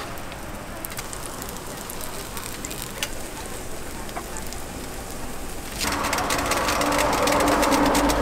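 Hotteok batter in steel ring molds sizzling faintly on a hot griddle, with a few light ticks. Almost six seconds in the sound jumps louder into a dense crackling sizzle with a steady hum underneath.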